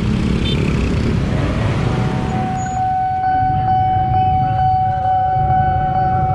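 Motorbike traffic noise at a railway level crossing; about two and a half seconds in, a steady high electronic warning tone takes over and keeps sounding, with a second wavering tone just beneath it: the crossing's warning alarm signalling an approaching train.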